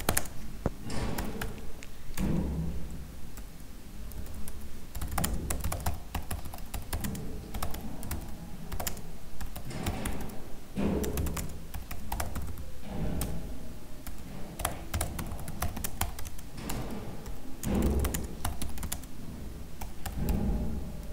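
Typing on a computer keyboard: an irregular run of key clicks and duller thumps as a line of text is entered.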